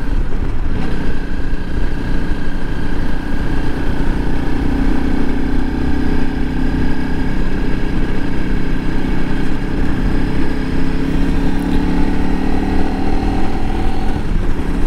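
Honda CRF300L Rally's single-cylinder engine running steadily while being ridden at road speed, with a low wind rumble.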